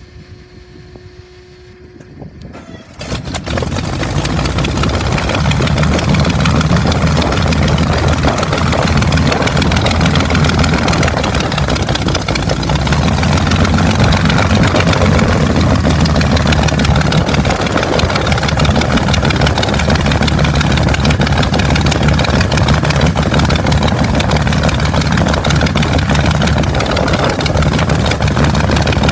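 Daimler-Benz DB 605 inverted V12 of a Messerschmitt Bf 109 G starting: it catches suddenly about three seconds in and settles into loud, steady running with a deep rumble.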